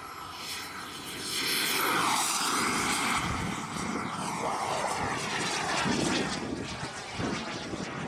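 Turbine engine of a large radio-controlled F-16 model jet whining as it makes a fast pass, getting louder about a second in with its pitch sliding as it goes by, then climbing away.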